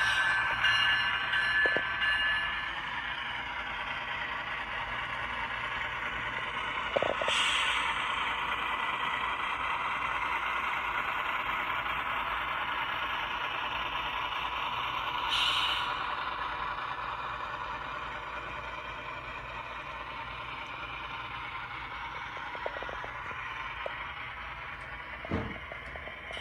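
HO scale model GE ET44AC locomotive running with its DCC sound decoder playing, a steady engine-like sound through a small speaker. A high tone sounds over the first couple of seconds, and two short sharp hissing bursts come about 7 and 15 seconds in.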